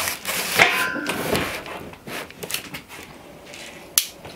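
Large cardboard box being pushed and slid about on a countertop: scraping and rustling of the cardboard with a brief squeak, then lighter handling noises and one sharp knock about four seconds in.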